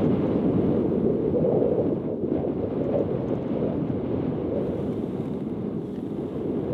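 Wind buffeting the microphone: a steady rushing noise, with a brief dip about two seconds in.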